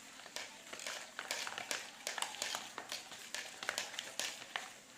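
A spoon stirring white glue and cornstarch in a small pot for slime, with quick irregular clicks and scrapes of the spoon against the pot.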